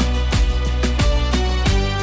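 Background music with a steady beat and low held bass notes.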